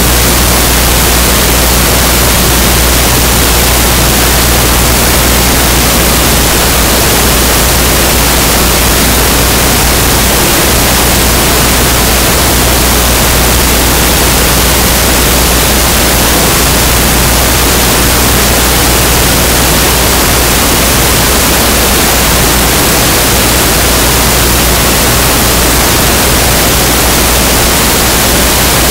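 Loud, steady static hiss with a low electrical hum beneath it, unchanging throughout; no game sounds come through it.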